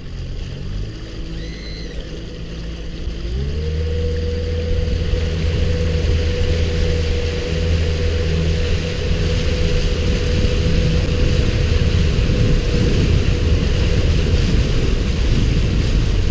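Boat's outboard motor running slowly, then throttling up about three seconds in, its pitch rising to a steady higher speed. Rushing water and wind noise build as the boat gets under way.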